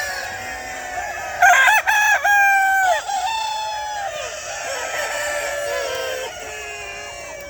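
A rooster crowing loudly about a second and a half in, one long call that drops in pitch at the end, over other chickens calling and clucking.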